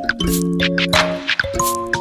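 Background music: sustained synthesizer-like chords with a steady percussive beat.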